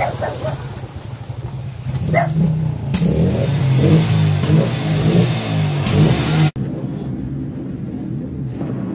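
Suzuki 230 Quadrunner's single-cylinder four-stroke engine running and revving, louder and rising in pitch around the middle, over a steady hiss. About two-thirds through it cuts abruptly to a duller-sounding film soundtrack of motorcycle engines.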